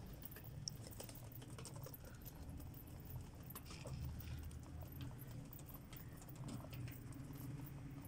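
Pigeons pecking pearl millet off a cement floor: a faint, irregular patter of small beak taps, over a low steady rumble.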